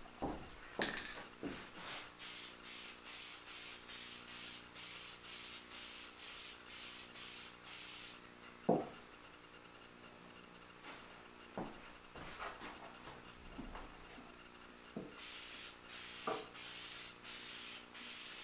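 Aerosol can of spray lacquer hissing in rapid short bursts, about three a second. The hissing stops for several seconds in the middle, where a few knocks are heard, and starts again near the end.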